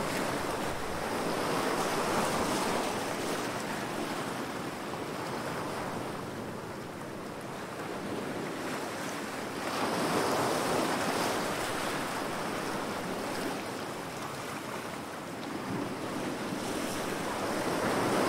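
Recorded sound effect of heavy waves crashing against rocks, a continuous surf that swells and eases three times, about eight seconds apart.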